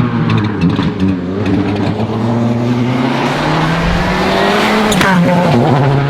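A turbocharged World Rally Car engine accelerating hard, its note rising steadily for several seconds. Near the end there is a sharp crack as it shifts up and the pitch drops. Short crackles sound in the first second.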